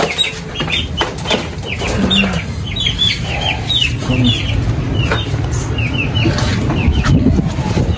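Many small birds chirping in quick, short falling peeps, over a steady low rumble.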